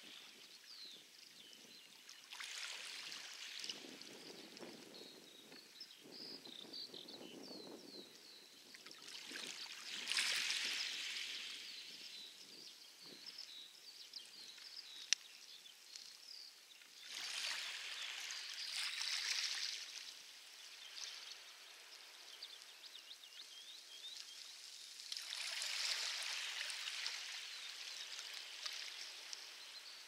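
Light waves washing onto a pebble beach, one swell every seven to eight seconds, rising and falling away, with distant birds chirping faintly between the washes.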